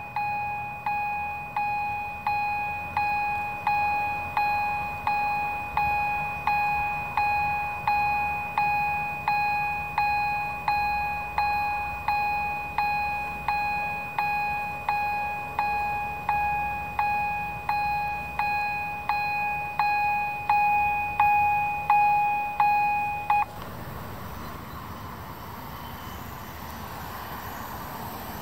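Railway level-crossing warning bell striking steadily, about three strokes every two seconds, then stopping about 23 seconds in. After it stops, the faint running noise of an approaching train slowly rises.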